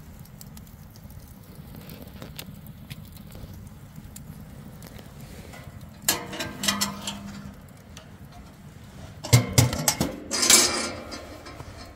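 Clinks and clatter of hard objects being handled, likely metal camp gear. A few light clicks come first, then two bursts of clattering, about six and nine seconds in; the second burst is the loudest.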